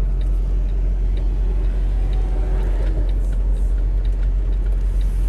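Steady low rumble of road and engine noise inside a moving car's cabin, with a faint regular ticking about twice a second.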